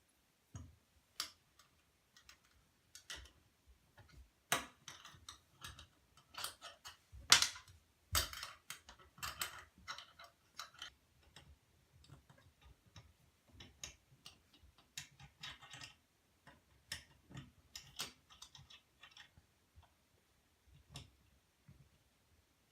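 Irregular clicks, taps and short scrapes of a new bathtub spout being fitted onto its pipe and its set screw tightened with an Allen wrench; the loudest knocks come about seven and eight seconds in.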